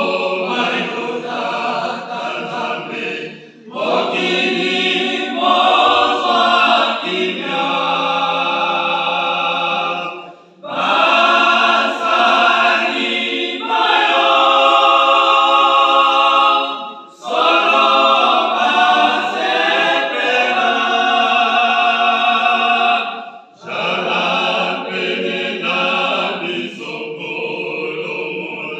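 Small church choir of mixed voices singing a Lingala gospel hymn a cappella, in phrases of about six or seven seconds broken by short pauses.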